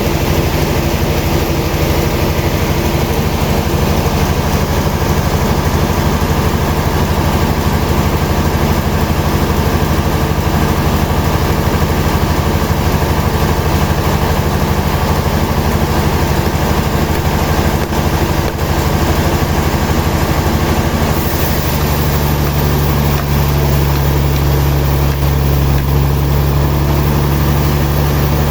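Heavy sawmill machinery running with a steady engine-like drone. About 21 seconds in, the drone shifts to a different, stronger pitch.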